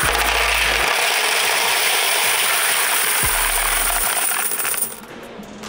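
A large mass of quarters poured from a plastic bin into the plastic tray of a coin-counting scale: a dense, continuous clatter of coins that stops about five seconds in.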